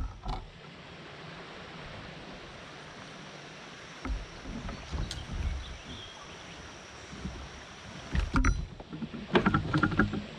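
Kayak paddling: a paddle working in the water and knocking against the kayak's hull, a few irregular low thumps and knocks over a steady hiss, with the loudest knocks near the end.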